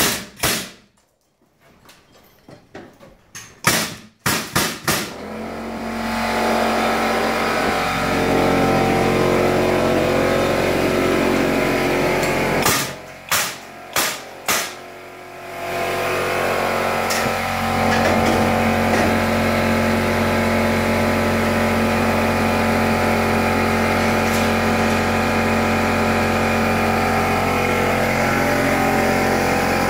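Pneumatic framing nailer firing several sharp shots into a wood beam. An air compressor then runs steadily with a constant low hum, and a quick run of four more nail shots comes about halfway through.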